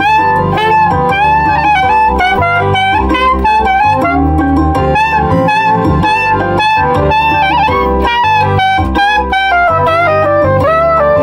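Soprano saxophone playing a busy melody of quickly changing notes, with a few slides between notes, over a recorded backing track of bass and chords.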